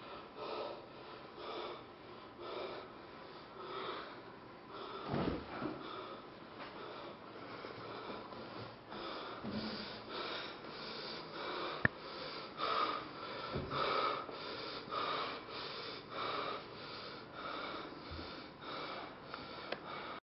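Heavy breathing: rapid, repeated breaths one after another, with one short sharp click about twelve seconds in.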